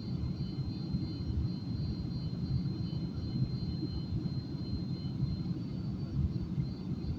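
Airplane cabin noise heard from a window seat: a steady deep rumble of engines and rushing air, with a faint steady high whine above it.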